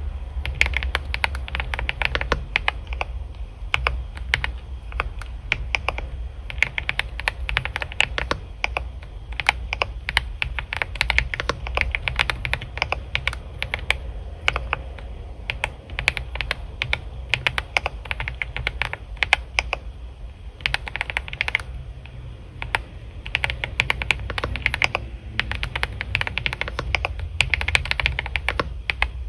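Computer keyboard being typed on: fast, irregular runs of key clicks with short pauses between bursts, over a steady low hum.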